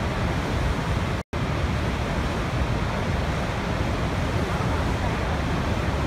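Steady low rushing roar of a huge waterfall, Niagara's Horseshoe Falls, with water pouring over the brink. The sound cuts out for an instant about a second in.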